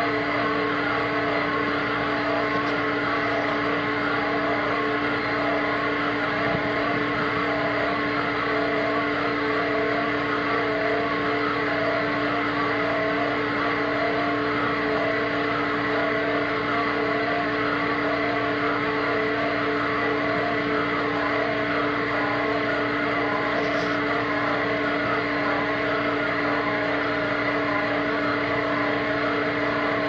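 Excavator's diesel engine and hydraulics running steadily at a constant pitch, driving a hydraulic earth auger that drills into frozen soil.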